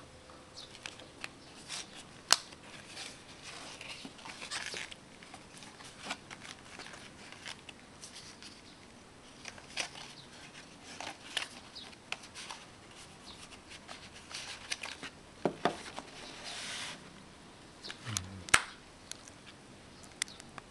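A paper pop-up card being handled: scattered light clicks and taps with rustles of card sliding against card, and a sharp click about two seconds in and another near the end.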